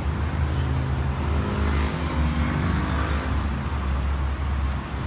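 Steady low traffic rumble, with a motor vehicle passing by between about one and three and a half seconds in, its engine note rising and fading.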